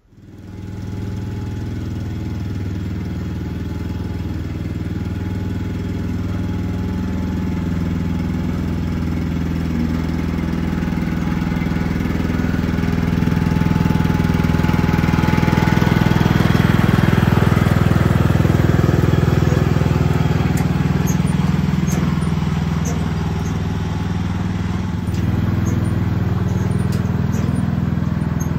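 Small tractor's engine running steadily. It grows louder toward the middle, drops back, then rises again near the end, with faint clicks and rattles in the second half.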